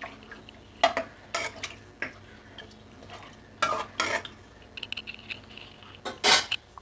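Ladle stirring mutton pieces in water inside a pressure cooker, with a handful of sharp clinks and scrapes of the ladle against the pot's metal side, the loudest near the end.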